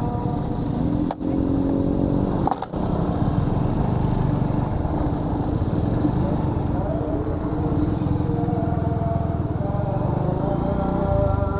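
Small single-cylinder two-stroke motorcycle engine (Honda Win 100) running steadily while riding, with wind noise on the mic. The sound drops out for an instant twice in the first three seconds.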